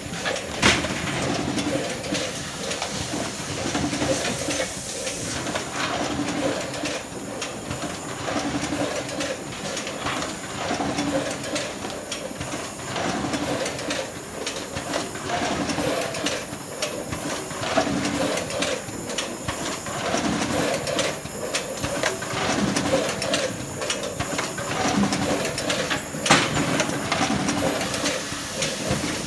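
Automatic cherry-tomato packing line running: a steady machine clatter and hiss, broken by sharp clicks and knocks every few seconds, the loudest near the end.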